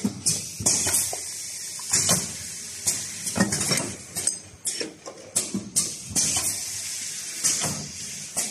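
Automatic pneumatic sauce filling machine running: irregular clacks of its air cylinders and jar stops with short hisses of released air, while plastic jars clatter along the conveyor.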